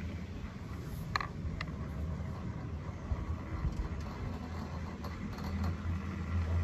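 Ride noise on a Poma high-speed quad chairlift heard from the chair: a steady low rumble of the haul rope and moving chair, a little louder near the end as the chair nears a lift tower. Two short clicks about a second in.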